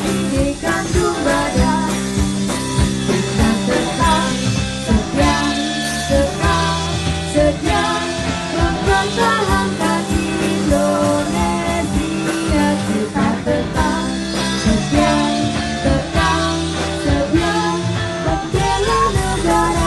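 Women singing into handheld microphones over loud amplified band music.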